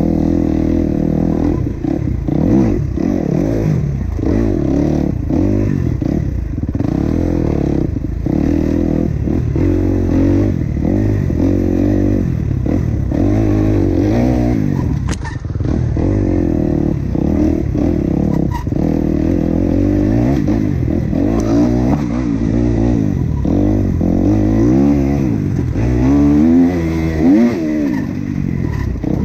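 Enduro dirt bike engine revving hard at race pace, the pitch climbing and dropping again and again through throttle blips and gear changes, with short knocks from the bike over rough ground; the steepest, loudest climbs come near the end.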